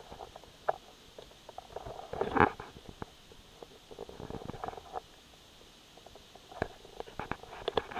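Muffled handling noise picked up by an action camera's built-in microphone: irregular clicks, knocks and rubbing. The loudest knock comes about two and a half seconds in, and a cluster of clicks comes near the end.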